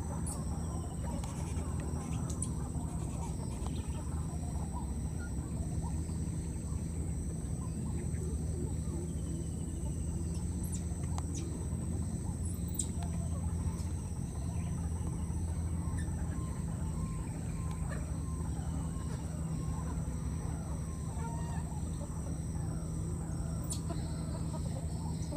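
Outdoor rural ambience: a steady low hum with faint, scattered bird calls and clucks, and a thin steady high tone.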